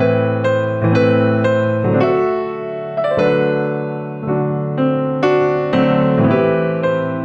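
Piano music, with soft chords struck about every half second, each ringing on and fading. No singing.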